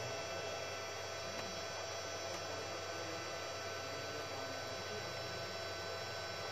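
Homage Axiom 2002 inverter/UPS running under load after repair, its cooling fan and transformer giving a steady hum with several high, unchanging tones.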